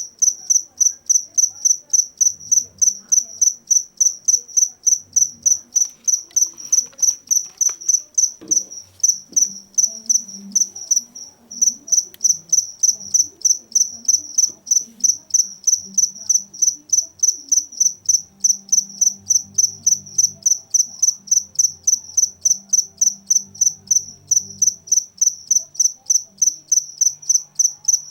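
Cricket chirping loudly, a rapid run of evenly spaced high-pitched chirps made by rubbing its wings together, with a brief break about halfway through.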